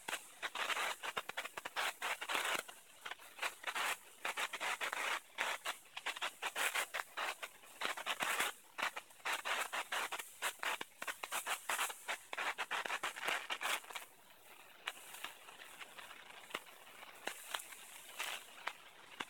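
Fireworks crackling: a dense run of rapid sharp pops and crackles, with no deep bangs, that thins out about fourteen seconds in to scattered faint clicks.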